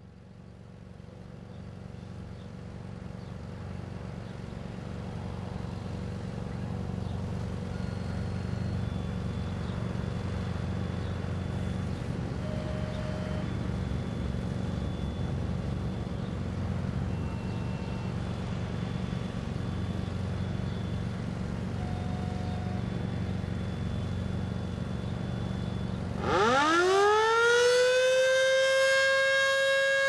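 A deep, steady rumble that grows over the first few seconds, then near the end a Federal Signal Model 2 120-volt electromechanical warning siren winds up: its tone rises quickly and then holds high and steady, the first rise of its attack signal.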